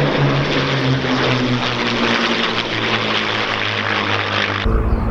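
Four P-51 Mustangs flying past, their Packard Merlin V-12 piston engines giving a steady low tone that drops in pitch about halfway through as they pass. Near the end the sound cuts abruptly to a deeper aircraft rumble.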